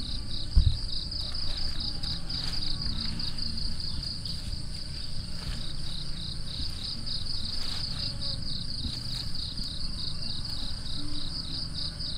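Insects chirping steadily outdoors, a high, evenly pulsing call repeating several times a second, over a low rumble. A single thump just under a second in.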